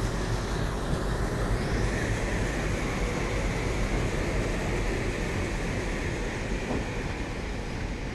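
A diesel-hauled train passing at close range, with a steady, dense rumble of the locomotives and wheels on the rails.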